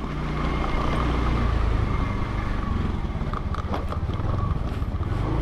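Motorcycle engine running steadily while being ridden, with road and wind noise; the sound grows a little louder in the first second.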